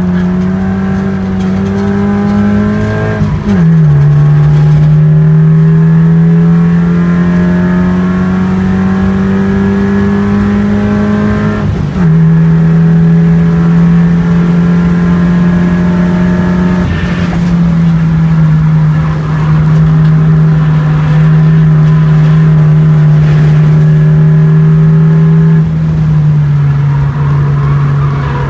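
Race car engine heard from inside the car under hard acceleration. Its pitch climbs slowly through the gears, with upshifts about three and a half and twelve seconds in. It then runs steadily at high speed and eases off twice later on, the second time near the end as the car slows for a corner.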